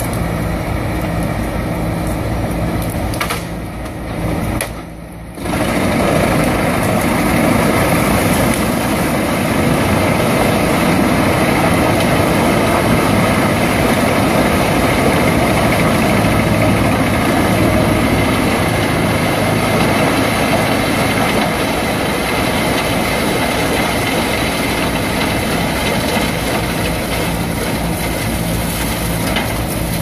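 Engine-driven wood chipper running steadily, with a brief drop in level about four to five seconds in before it carries on louder and noisier.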